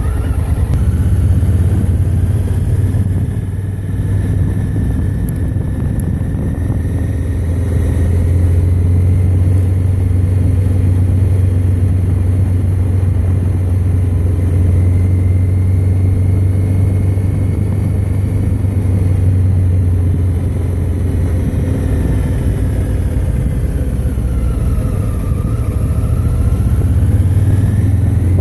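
Vehicle engine running steadily while driving, with a low hum and a fainter high whine that dips in pitch and rises again near the end.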